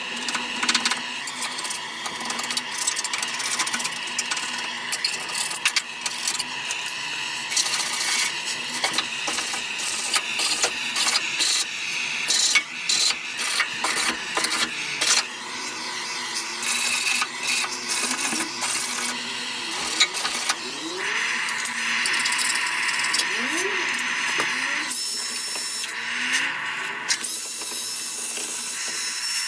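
Gas blowtorch hissing steadily as it heats bitumen underseal on a car's underside, with the scraping, clicking and knocking of a hand scraper lifting the softened coating. In the last several seconds a cordless drill runs in short bursts.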